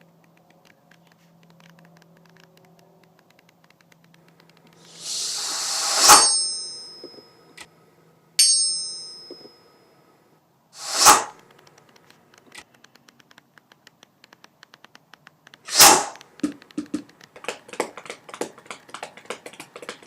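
Cartoon sound effects: a swelling hiss that ends in a sharp hit with a ringing ding about six seconds in, a second ringing ding shortly after, another swell about eleven seconds in, then a further sharp hit followed by a rapid, uneven run of ticks and taps near the end.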